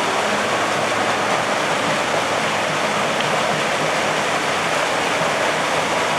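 Steady rush of water pouring down a hydroslide and splashing into the pool below.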